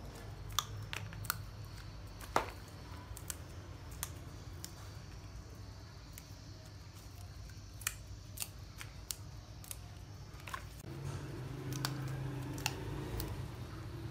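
Crisp water spinach stems snapped by hand into short pieces: sharp, irregular snaps, a few a second at most, with gaps between. A steady low hum runs underneath and grows louder near the end.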